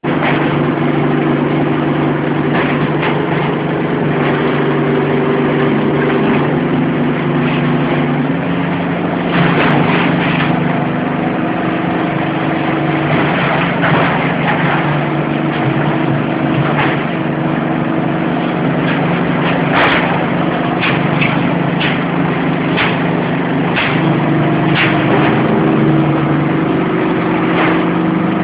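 Hydraulic scrap car-body baling press running, its power pack humming steadily with the hum shifting in pitch now and then. Sharp cracks and crunches come through at intervals as the scrap metal is pressed.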